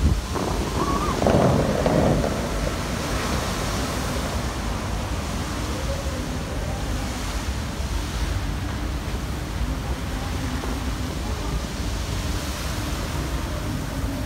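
Bellagio fountain jets spraying and splashing back into the lake, a steady rush of water, with a brief louder surge about a second in.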